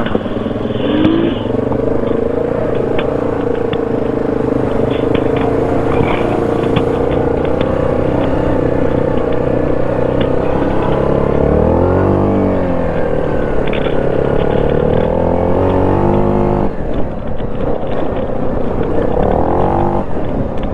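ATV engine running as it is ridden. Its pitch dips and climbs again about twelve seconds in, falls away sharply about seventeen seconds in, and rises again near the end.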